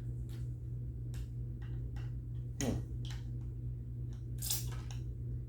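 A handheld pump oil can being worked to squeeze oil out of a nearly empty can: a few irregular clicks and knocks, the louder ones about halfway through and near the end, over a steady low electrical hum.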